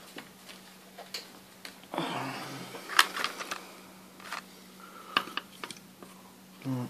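Scattered clicks and light taps of a hand handling wires and components inside an open bench power supply, the sharpest click about three seconds in, over a faint steady low hum.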